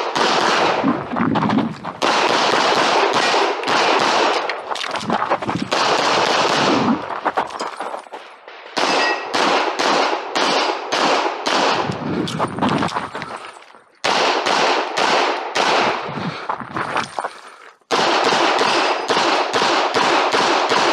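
Semi-automatic pistol fired in fast strings of shots during a practical shooting stage, with three short breaks between strings as the shooter moves to new positions.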